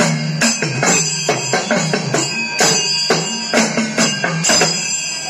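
Edakka, the Kerala hourglass drum, struck rapidly with a stick in a thayambaka rhythm, its drum tone stepping up and down in pitch, with a chenda drum accompanying and a bright metallic ringing of cymbals over the beat.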